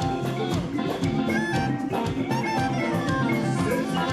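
Upbeat band music with horns and a drum kit keeping a steady beat.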